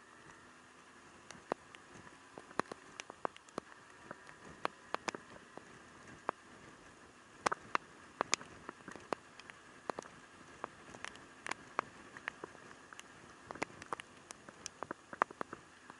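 Raindrops tapping close to the microphone in irregular sharp ticks, several a second, over a faint steady hiss.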